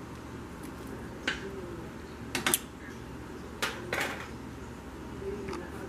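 A pot of angel hair pasta boiling with a steady bubbling hiss, with a few sharp clinks of a utensil against the pot as the noodles are stirred and lifted.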